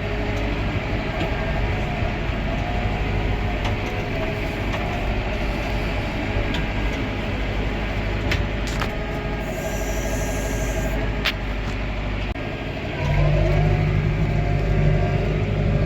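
Tractor engine running steadily, its low hum growing louder about thirteen seconds in, with a few light clicks and knocks.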